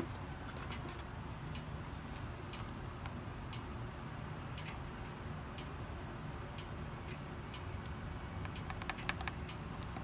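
Light, irregular ticking clicks, with a small cluster near the end, over a steady low hum.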